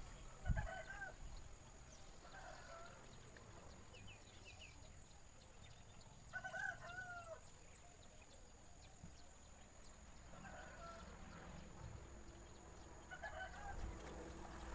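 Faint domestic chickens calling: about six short calls spread out, the longest about six and a half seconds in. A low thump comes about half a second in.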